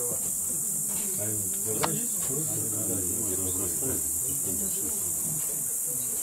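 Insects chirring steadily in summer vegetation, a continuous high-pitched hiss.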